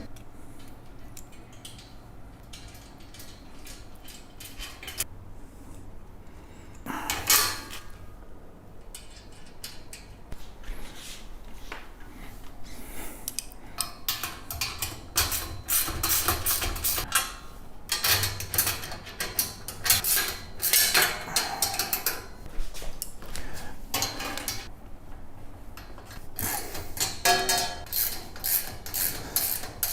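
Irregular knocks and clatter of a compost tumbler's parts being handled and fitted during assembly, with one louder knock about seven seconds in. The clatter grows busier in the second half.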